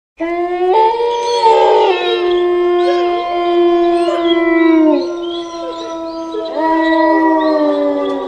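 A pack of wolves howling in several overlapping voices, starting suddenly out of silence: one long, low howl held steady for several seconds and dropping at its end, with higher howls bending and gliding above it. A fresh round of long howls begins about six and a half seconds in.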